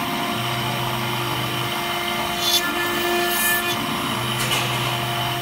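CNC router spindle running a small cutter into a brass plate under a stream of coolant, a steady machine whine. Its tones shift in a repeating cycle about every four seconds as the cutter works through each pass, with brief hissy bursts between.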